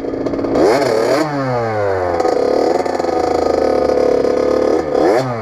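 Kawasaki KX80 two-stroke dirt bike engine revving under way. The pitch climbs over the first second, drops off, holds steady through the middle and climbs again near the end.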